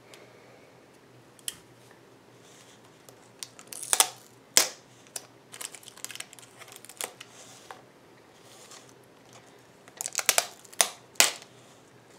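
A serrated folding knife cutting and scraping around the taped rim of a thin plastic deli cup, in sharp clicks, taps and scrapes of blade on plastic. The loudest come about four seconds in and in a quick cluster near the end.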